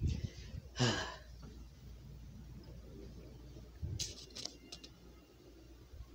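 Quiet room tone with a few brief rustles and small clicks from a hand-held phone being moved about.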